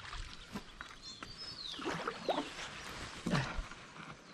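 Water sloshing and gurgling around a bamboo pole as a bamboo raft is poled across calm water. The sounds come as short falling-pitch splashes, the loudest about two and three and a half seconds in.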